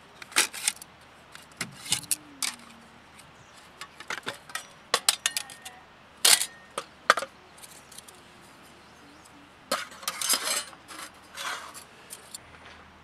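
Folding Firebox G2 5-inch stove being opened out: its thin steel panels clink and click sharply as they swing and lock into place, with a short metallic ring now and then. Near the end a quick run of knocks and rattles as short wood sticks go into the stove.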